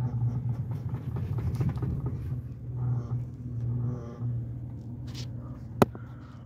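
Chevrolet pickup truck engine idling, heard from inside the cab: a steady low hum that swells and dips, with the engine not yet warmed up. A single sharp click near the end.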